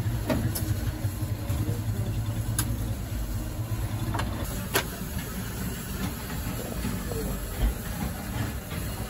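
A few sharp clicks of long metal tongs against the oven's wire grill rack as flatbread is lifted out, over a steady low rumble with a light hiss.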